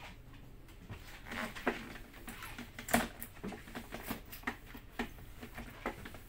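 Scattered small plastic clicks and taps from handling a KYT racing helmet's visor while a tear-off film is fitted onto it, with one sharper knock about three seconds in.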